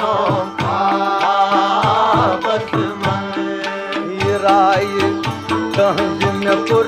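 Instrumental passage of a Kashmiri folk song: a melody over a steady hand-drum rhythm.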